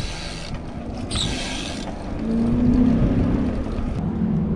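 Wind rumble on an action camera's microphone while riding a BMX bike over pavement, with bursts of hiss near the start. A steady low hum joins about two seconds in.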